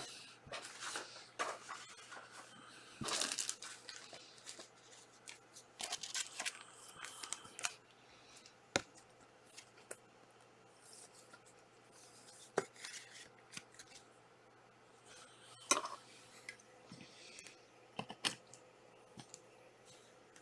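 Faint handling of trading cards: short rustles, scrapes and slides of cards and pack wrappers, with a few sharp ticks now and then.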